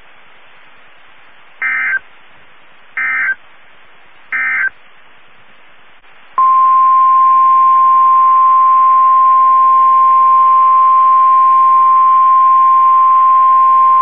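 NOAA Weather Radio alert tones over faint radio hiss. First come three short chirping SAME digital data bursts, the end-of-message code that closes a warning broadcast. Then, about six seconds in, the loud, steady 1050 Hz warning alarm tone starts and holds, which signals that a new warning is about to be read.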